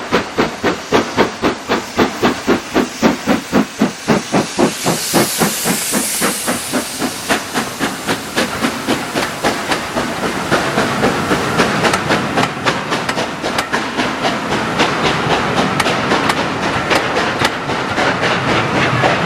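LMS Black 5 4-6-0 steam locomotive working under steam, its exhaust beats coming about four a second and quickening, with a burst of hissing steam about five seconds in. From about halfway the beats blur into a denser, steady rumble.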